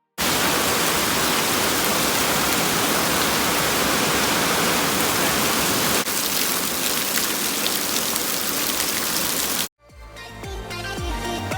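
Heavy rain falling, a loud steady hiss of drops close to the microphone, changing slightly about six seconds in and cutting off sharply near the end, where background music comes in.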